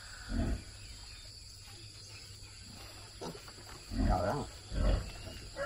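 Pigs grunting: three short grunts, one just after the start and two close together near the end.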